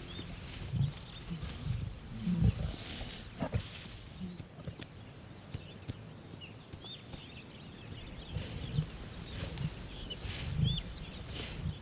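Lions growling in short low bursts at a kill, the loudest about two and a half seconds in.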